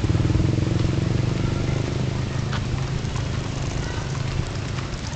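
A motor vehicle engine running and slowly fading away, with a few faint clops of horse hooves on the asphalt.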